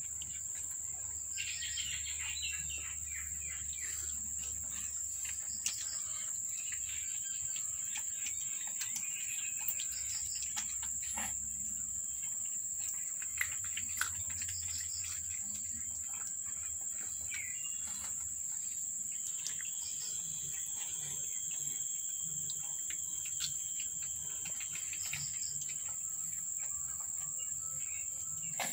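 A steady high-pitched insect chorus, with birds chirping on and off and scattered small clicks.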